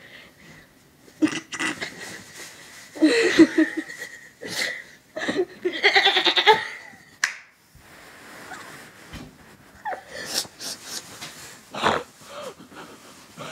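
A young woman's goofy vocal noises and laughter in short bursts, with a drawn-out, quavering sound about three seconds in and a longer one around six seconds in.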